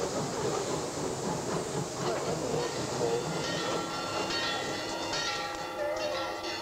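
Dense rushing hiss, joined about halfway through by several steady held tones that build into a sustained musical chord.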